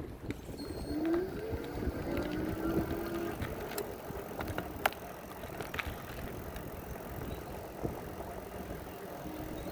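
Riding an e-bike in the wind, with steady wind and tyre rumble. About a second in, a whine rises and then holds steady for a couple of seconds. A few sharp clicks come in the middle.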